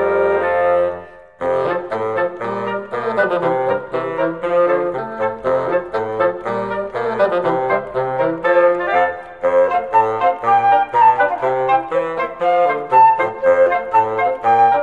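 A small double-reed wind ensemble of oboes and bassoons playing a lively tune. The music breaks off briefly about a second in, then carries on in short, detached notes.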